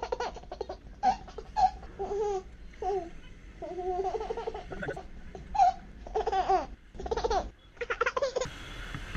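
Laughter: repeated high-pitched peals of laughing in short bursts, with a low rumble beneath.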